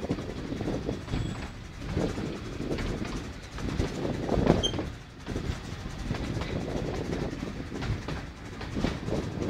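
Narrow-gauge steam train hauled by the Hunslet saddle-tank locomotive Maid Marian, heard from a carriage as it runs along: wheels clacking over the rail joints in uneven surges, the loudest about halfway through.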